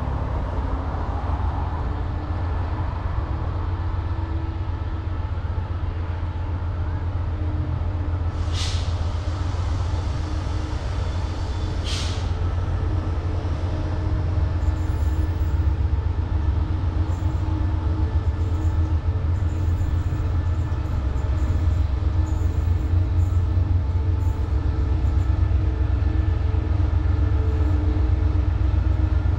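Diesel locomotive engine rumbling steadily and growing louder as a freight train approaches, with two short high hisses about three seconds apart around a third of the way in.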